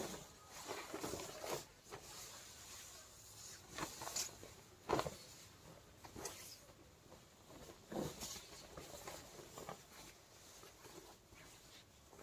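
Silk saree fabric rustling and swishing as it is unfolded and shaken out, in a series of short swishes with the strongest about five seconds in.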